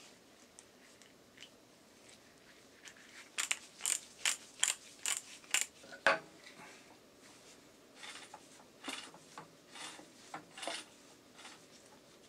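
Wrench tightening the cylinder nuts on a Yamaha SRX600 engine under overhaul, making sharp metallic clicks about three a second for a couple of seconds, then one louder knock and a scattering of lighter clicks.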